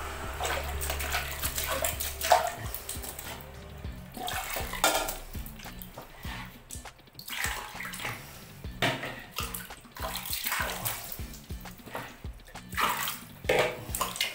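Water poured from a plastic scoop into a plastic bucket and swished about by hand in repeated splashes, mixing bath water to the right warmth. Background music plays underneath.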